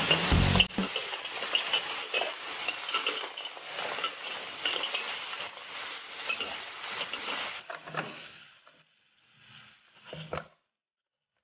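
New Zealand green-lipped mussels in their shells sizzling in a hot wok while a spatula stirs and scrapes them, with clicks of shell and metal against the wok. The sizzle fades out about eight seconds in, followed by a couple of faint knocks.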